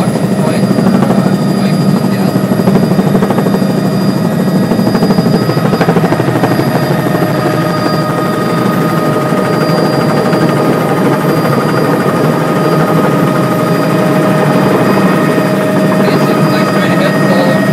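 Helicopter in flight heard from inside the cabin: the loud, steady drone of rotor and engine, with a few thin, steady high whining tones over it.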